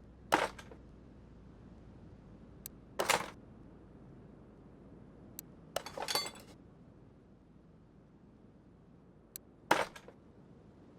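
Four sharp clinks of hard objects knocking together, about three seconds apart, with a few faint ticks between them.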